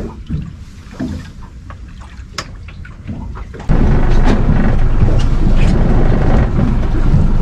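Boat under way: a loud, steady rumble of engine and wind noise starts abruptly a few seconds in, after a quieter stretch of scattered knocks and clicks.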